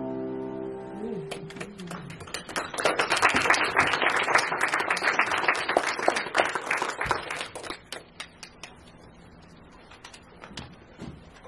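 A grand piano's final chord rings out and dies away in the first second. An audience then applauds for about six seconds, loudest in the middle, and the clapping thins out and stops near the end.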